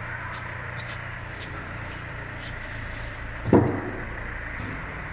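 A single heavy thud about three and a half seconds in, over a steady low hum with faint scattered clicks.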